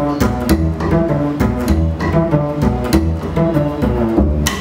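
Double bass played pizzicato: an improvised line of plucked notes, several a second, with a sharp click near the end.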